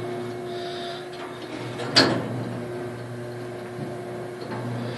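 A single sharp knock about two seconds in, over a steady low hum.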